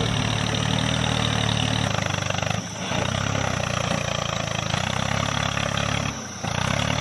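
Tractor engine idling steadily, an engine sound effect laid over a toy tractor, dropping briefly twice.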